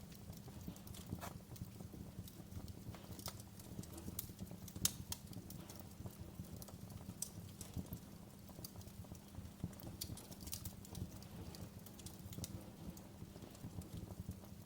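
Wood fire in a fireplace crackling: irregular sharp pops and snaps over a low steady rumble of the flames, with one louder pop about five seconds in.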